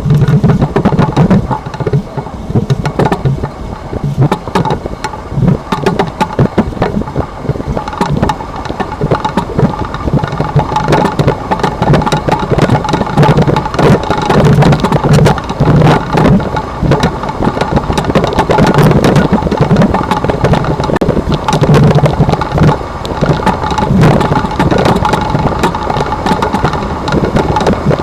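Chevrolet Silverado 1500 Trail Boss heard from inside the cab while running: steady road and vehicle noise with repeated clunks and knocks throughout, the excessive leaf-spring clunking the owner is documenting.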